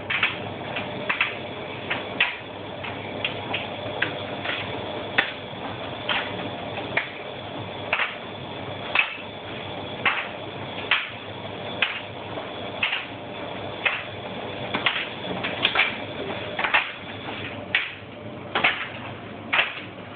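Bosch WFF 1200 washing machine running a boil wash: steady running noise with sharp knocks every second or so as the drum turns the load.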